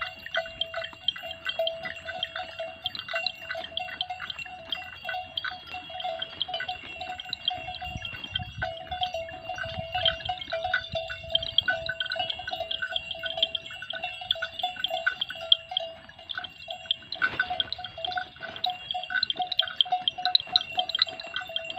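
Bells hung on a herd of cattle and water buffalo, clanking in a continuous irregular jumble of overlapping ringing strokes, with one duller knock about three-quarters of the way through.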